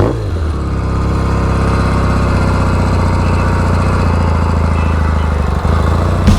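Royal Enfield Interceptor MKII's 736 cc parallel-twin engine running under way on the road. The engine note dips and recovers right at the start, as in a gear change, then holds steady.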